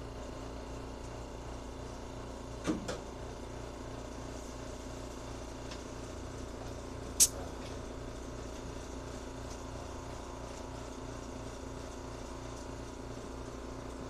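Air compressor motor running steadily with a constant hum. There is a light knock about three seconds in and a single sharp click about seven seconds in.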